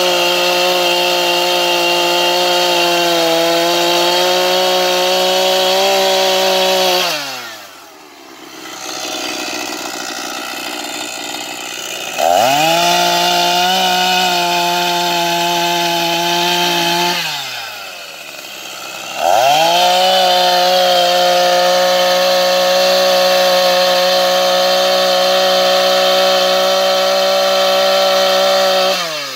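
Echo two-stroke chainsaw cutting through a fallen log at full throttle, in three long cuts. Between them the revs drop back to idle, about seven and seventeen seconds in, and the saw revs up again about twelve and nineteen seconds in. It drops to idle once more at the very end.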